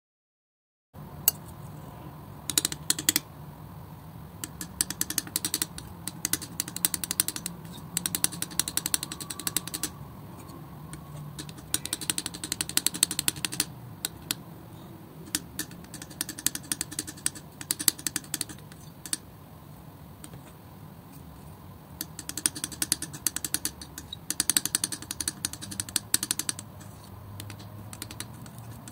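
Metal palette knife pressing, spreading and folding thick wet acrylic paint on a smooth surface: clusters of small sticky clicks in bursts with short pauses, starting about a second in.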